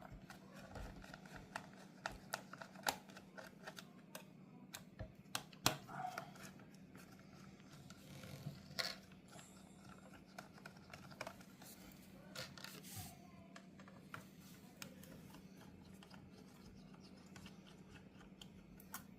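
Irregular light clicks and scratches of small plastic parts being handled and fitted by hand during disassembly of a car radio display unit, over a faint steady hum. The clicking thins out in the last few seconds.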